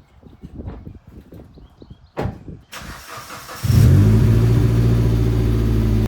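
2008 Mitsubishi Lancer Evolution X's rebuilt, turbocharged 2.0-litre four-cylinder cranking and firing up a little past halfway through, then running at a loud, steady high idle. A single clunk comes about two seconds in, before the start.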